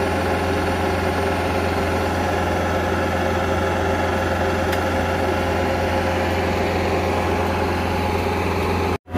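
Bobcat compact track loader's diesel engine running steadily under load, driving the hydraulic ground-screw attachment as it turns a steel ground screw down into rocky clay. The drone is even throughout and cuts out for a moment near the end.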